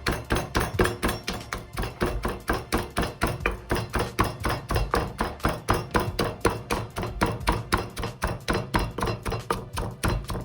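A pestle pounding ingredients in a mortar for papaya salad: quick, even knocks, about four to five a second, without a break.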